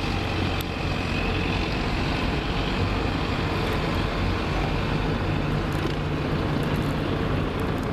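An engine running steadily under a constant rushing noise.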